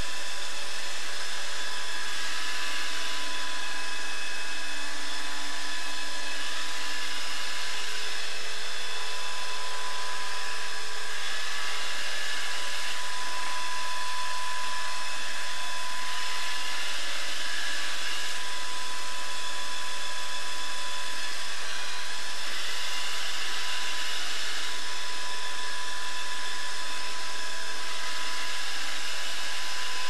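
Samsung Tango robot vacuum cleaner running as it drives over a laminate floor: a steady whirr of its suction fan and brush motors, with a thin, even whine on top.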